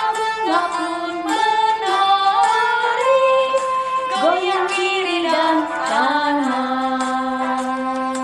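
A woman singing a cheerful Indonesian children's song with instrumental accompaniment and a steady beat. She ends the phrase on a long held note near the end.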